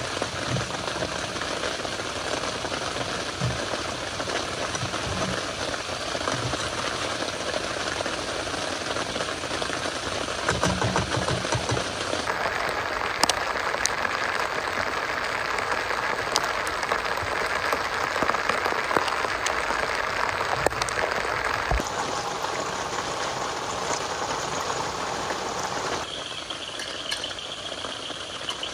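Chicken pieces frying in a pan: a steady sizzle with small pops and clicks, mixed with the hiss of rain. The sound changes abruptly a few times.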